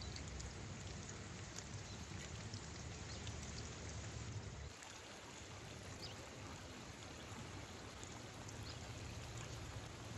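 Steady rush of a stream, with scattered light crackles of a wood fire. A deeper rumble under it drops away about halfway through.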